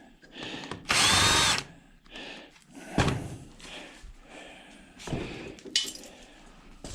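Power drill run in one short burst about a second in, its motor winding up and back down, followed by a few sharp metal knocks and clunks as the washing-machine motor is handled.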